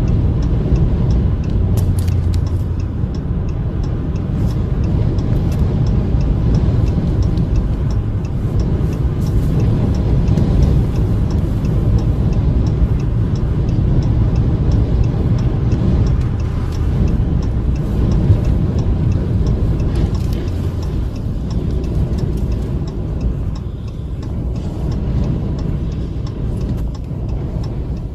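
Steady, heavy rumble of a vehicle driving on a highway in a gale: wind buffeting and road noise, with faint light ticks over it.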